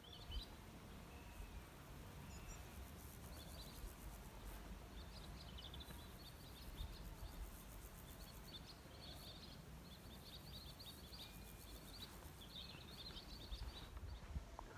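Swallows twittering, faint bursts of quick chirps that come again and again, over a low rumble.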